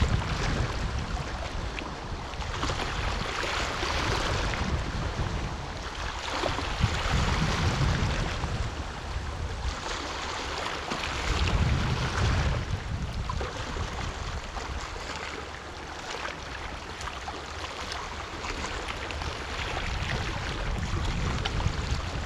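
Black Sea waves washing in, the rush of water swelling and falling back every few seconds, with wind rumbling on the microphone.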